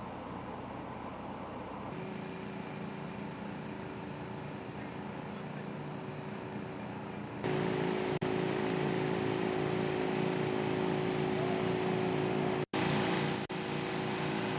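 A fire brigade's motor-driven water pump running steadily, pumping out floodwater. The sound jumps louder about two seconds in and again about halfway through, with a brief break near the end.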